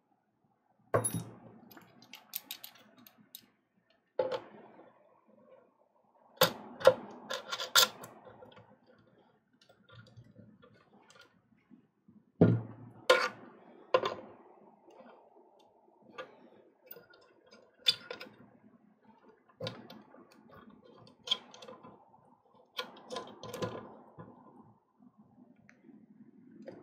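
Irregular clicks, knocks and light rattles of hardware being handled and fitted: the flexible gooseneck arms of a soldering microscope lamp being threaded into the knobs of its control box, with soft rubbing between the knocks.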